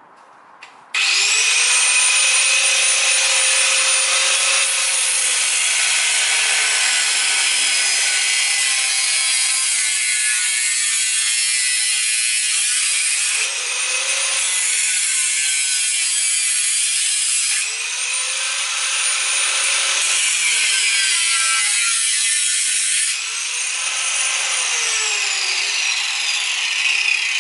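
Electric angle grinder with a cutting disc cutting through an old steel exhaust pipe. It starts with a rising whine about a second in, then runs with a loud, steady grinding noise that eases and picks up again a few times. Near the end the whine falls as the disc spins down.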